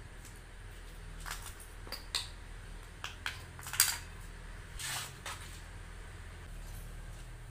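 Embossed metallic foil being folded and pressed around a small wooden block, and the block handled on the table: a scatter of short crinkles and taps, the loudest about four seconds in, over a faint steady hum.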